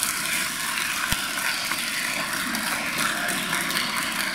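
Audience applauding: many hands clapping at once in a steady patter.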